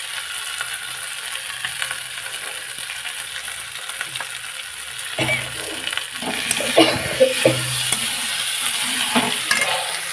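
Fried potato cubes and paneer sizzling in oil in a steel kadhai as they are sautéed, stirred with a metal spatula. Steady sizzling throughout, with louder scrapes and knocks of the spatula against the pan from about halfway through.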